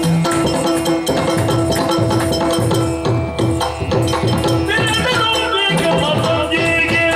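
Yakshagana instrumental accompaniment: chende and maddale drums beating a dense rhythm over a steady drone, with the jingle of the dancers' ankle bells.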